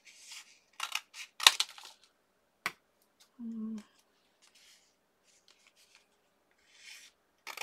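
Scissors cutting through a piece of card: a few sharp snips in the first couple of seconds, one more a moment later, and a soft cut near the end.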